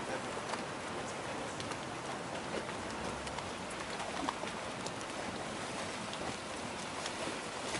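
Steady rush of water along the hull of a small motor tender under way, with many small splashes crackling through it.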